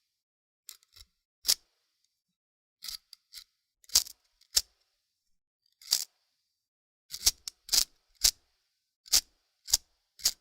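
Zippo windproof metal lighter clicking: about a dozen sharp metal clicks at uneven intervals, some with a brief high metallic ring, as the lid is flicked open and snapped shut.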